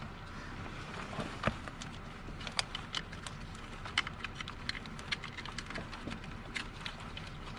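Irregular sharp metallic clicks and taps of hand tools and parts being handled under the hood, several a second and busier in the second half, over a steady low background hum.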